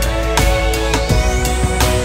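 Background music with a steady beat and a high sweep rising through it.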